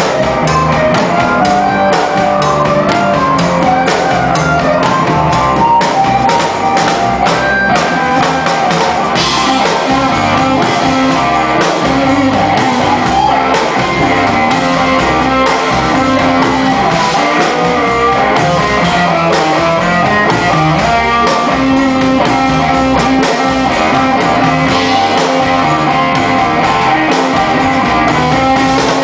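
Live blues band playing an instrumental passage: electric guitar, upright double bass and drum kit, with a harmonica played through a hand-held microphone at the start.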